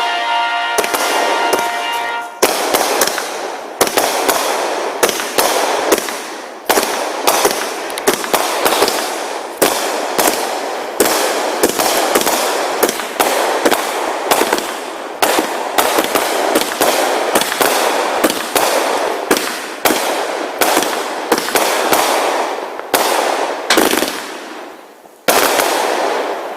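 Fireworks grand finale: aerial shells bursting in a rapid, continuous barrage of bangs, about one or two a second, with crackling between them. Near the end there is a short lull, then one last big burst.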